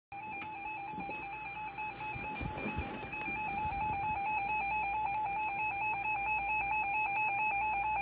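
NOAA Weather Radio receiver sounding its alert alarm for a flash flood warning: a steady electronic tone that warbles quickly back and forth between two close pitches.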